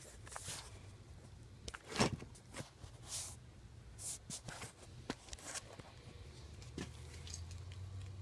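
Scattered knocks, clicks and short rustles from handling things at a workbench, the loudest knock about two seconds in, over a low steady hum.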